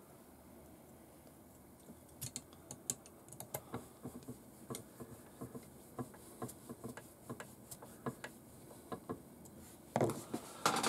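Small, irregular metallic clicks and ticks of a hex driver turning screws into the metal chassis of an RC crawler kit, starting about two seconds in. Near the end, a louder clatter as the tools are handled on the workbench.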